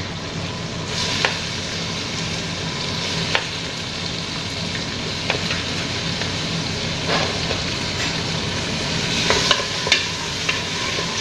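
Meat, onion, tomato sauce and freshly added tomatoes sizzling in oil in a metal pot, stirred with a wooden spoon that knocks against the pot a few times.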